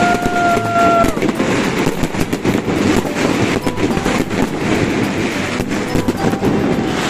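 Fireworks display crackling and popping in a dense, rapid, continuous stream, with voices underneath. A steady held tone sounds briefly in the first second.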